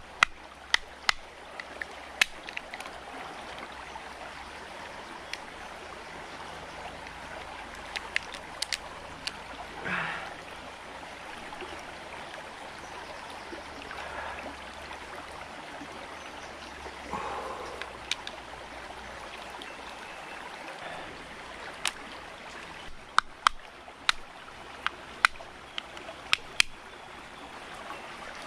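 Stream running steadily, with sharp cracks and clicks of cooked lobster claw shells being broken open by hand and with a knife, in clusters near the start, about eight seconds in and again over several seconds near the end.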